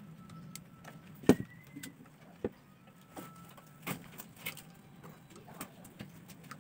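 Pliers clicking and tapping against wire and a metal terminal as a wire joint inside a rice cooker is twisted tight; a handful of sharp irregular clicks, the loudest about a second in, over a faint steady hum.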